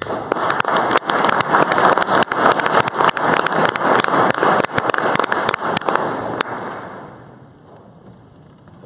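Audience applauding: a dense patter of many hands clapping that thins out and dies away about six to seven seconds in.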